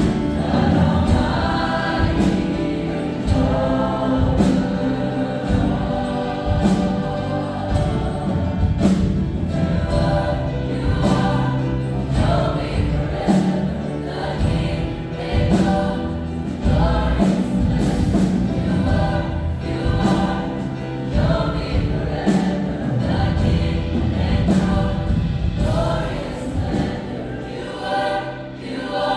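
Gospel choir singing a worship song with accompaniment and a regular beat.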